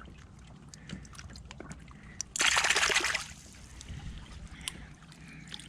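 Water trickling and dripping from a gravel sifting screen, with scattered light ticks and one short splash of water about two and a half seconds in.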